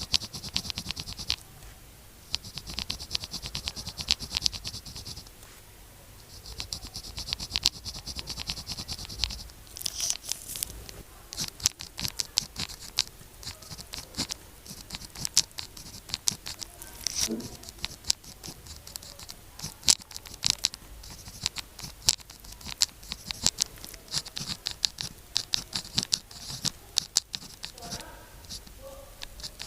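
Pen writing on sticky-note paper, close up. For about the first nine seconds it makes three long runs of scratchy strokes a few seconds each; after that come many short strokes and sharp little taps of the pen tip.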